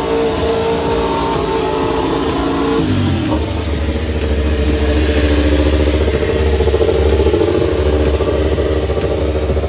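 Suzuki GSX-RR MotoGP bike's inline-four engine running on paddock stands during warm-up. It holds a steady fast idle, then about three seconds in its pitch drops to a deeper, pulsing rumble that grows louder toward the middle.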